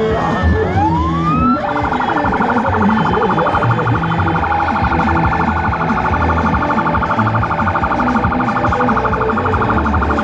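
Vehicle sirens: a wailing siren glides up and down, then about a second and a half in a fast-warbling siren tone takes over and holds steady.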